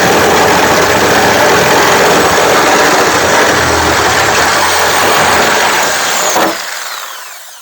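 A power cutting tool slicing through the sheet-steel quarter panel of a 1968 Pontiac GTO, loud and steady for about six seconds, then released and winding down near the end.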